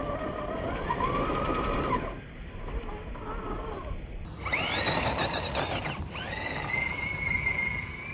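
Electric motor and gear drive of a 1/10-scale RC crawler whining as it is driven, slowed to half speed. The pitch rises and falls with the throttle. A louder rising whine about halfway through cuts off sharply, then the whine picks up again and holds steady near the end.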